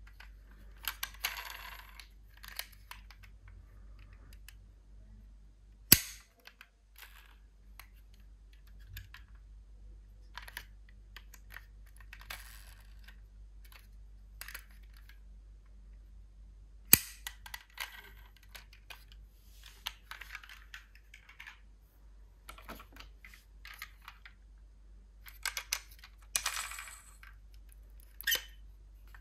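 Small die-cast toy cars clinking and rattling against each other as they are handled in a box, in short scattered bursts, with two sharp clicks, one about six seconds in and one about seventeen seconds in.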